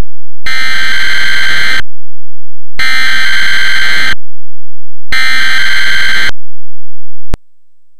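Emergency Alert System SAME header: three very loud, harsh, screeching digital data tones, each about a second and a quarter long with about a second between them. A single short click follows near the end.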